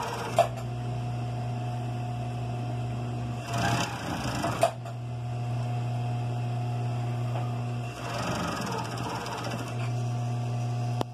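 Industrial coverstitch machine running steadily as it topstitches elastic into a knit waistband, with two short breaks in the stitching about four and eight seconds in.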